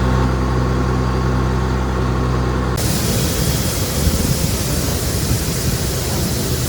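Heavy farm diesel engine running steadily. About three seconds in, the sound cuts abruptly to a rougher, louder-sounding run with a strong rushing hiss over the engine rumble.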